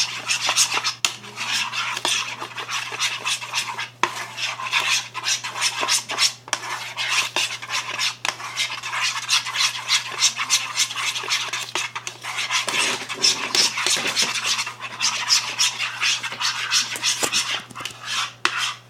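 A spoon stirring thick white glue and blue food colouring in a bowl, scraping and clicking against the bowl continuously.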